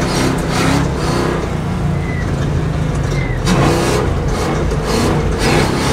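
Off-road truck driving over rough ground: the engine and tyres rumble steadily under jolts and knocks, and the brakes give two short, high squeals about two and three seconds in. The squeak comes from the truck's composite brake pads, which squeal under soft braking and go silent under hard braking.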